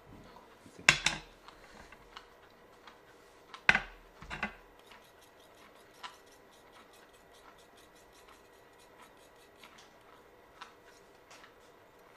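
Teeth grinding side to side on abrasive Shofu lapping paste, a gritty scraping with clicks, in a bruxism-style grinding movement. A few loud scraping strokes come in the first half, then a fast run of faint ticks.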